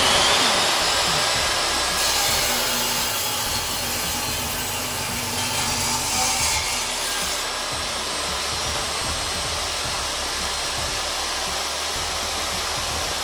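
Table saw running steadily at full speed, with its blade ripping through a block of wood along the fence partway through.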